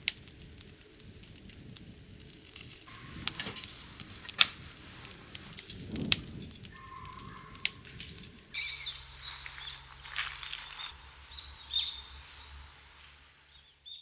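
Campfire wood crackling with sharp pops and snaps while birds chirp. About eight seconds in the sound cuts to a calmer scene of bird calls over a low steady hum.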